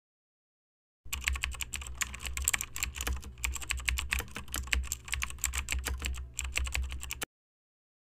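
Computer-keyboard typing sound effect: a rapid, dense run of key clicks over a low steady hum. It starts about a second in and cuts off abruptly shortly before the end.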